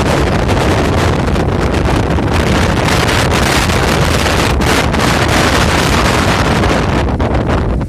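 Strong tropical-storm wind buffeting the microphone: a loud, unbroken rumbling roar that swells and eases with the gusts.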